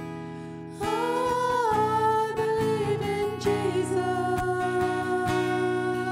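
Worship band playing a slow song on acoustic guitar and bass guitar, with women's voices coming in about a second in, singing long held notes.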